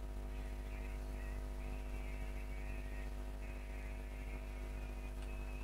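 A steady low hum with many even overtones, with faint high warbling chirps above it that come and go.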